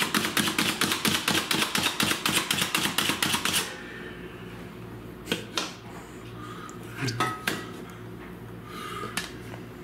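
Slap Chop hand chopper being slapped down again and again on apple pieces, a rapid clacking of about five strikes a second that stops about three and a half seconds in. A few single knocks follow.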